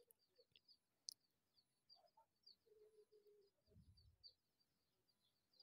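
Near silence, with faint, rapid high chirps of small birds repeating in the background.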